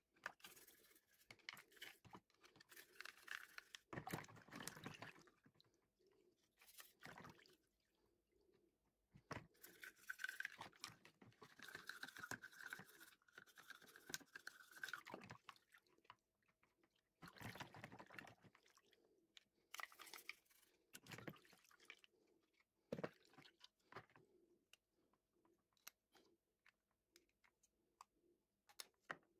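Quiet, wet scratching of a toothbrush scrubbing plastic Renault Clio air-vent grilles in a bowl of water, in irregular bursts a second to several seconds long, with scattered short clicks of plastic toward the end.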